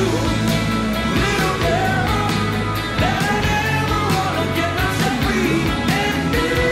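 Rock song with a singing voice over a steady drum beat.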